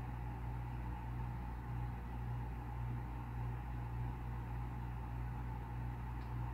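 Steady low hum with an even hiss, with no clicks or knocks over it: constant background noise of the room. The snake swallowing the mouse makes no sound that can be heard.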